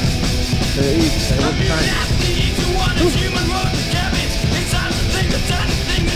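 Loud rock music with a singing voice, heavy and driving in the manner of punk or metal.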